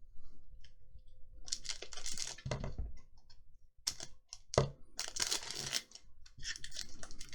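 Rustling and crinkling of a foil Pokémon booster pack wrapper and cards being handled, in several irregular bursts with a few light clicks between them.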